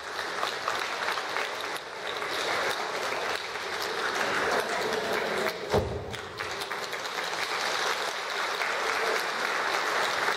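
Audience applauding steadily, with a single low thump about six seconds in.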